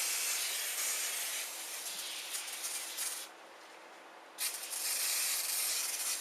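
A spray hissing steadily into the printer's interior to blow out debris. It stops for about a second past the middle, then starts again.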